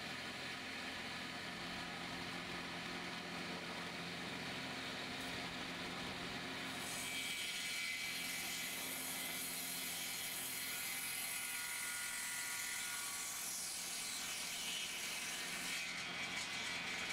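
Homemade circular saw with a newly bought blade spinning steadily, then from about seven seconds in cutting into a board: a hissing whine that slowly falls in pitch as the blade takes the load. A few clattering knocks come near the end.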